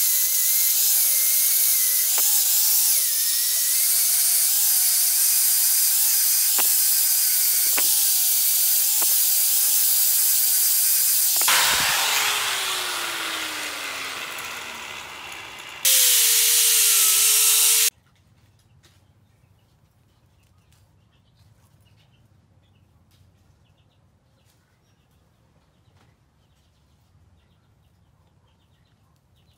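Handheld angle grinder running with its disc against a steel sword blade: a steady hiss over a wavering motor whine. About 11 seconds in the whine drops away and the disc winds down with a falling pitch. A brief burst of the grinder follows and cuts off suddenly, leaving a faint background with light ticks.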